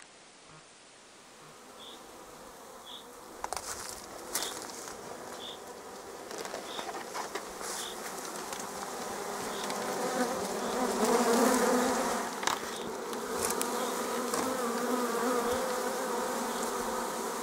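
Honeybee swarm buzzing in a mesh-covered swarm catcher, a steady hum that grows from faint to loud and peaks about ten seconds in. A few sharp knocks come from the catcher being handled.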